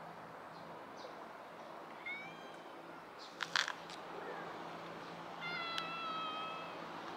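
A cat meowing: a short meow about two seconds in and a longer, steady meow near the end. Between them comes a quick cluster of sharp clicks, the loudest sounds.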